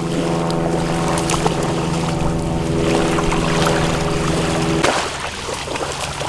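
A steady, even-pitched motor hum that cuts off abruptly with a click about five seconds in, leaving a faint noisy background.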